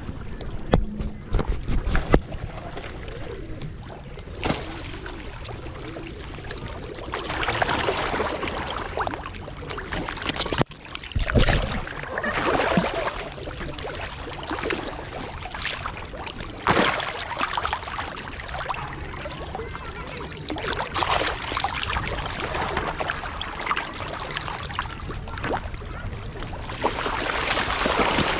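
Water splashing and sloshing in uneven swells, with wind rumbling on the microphone underneath.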